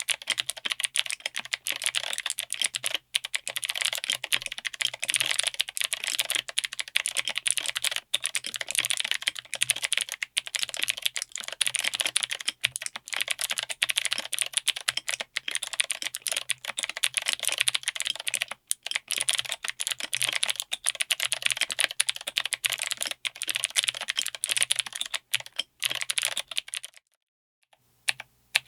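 Rapid, continuous typing on a mechanical keyboard with Akko Creamy Cyan clicky switches in an FR4-plate, aluminium-case 60% board, each keystroke a sharp click. The typing stops about 27 seconds in, and single separate key presses follow near the end.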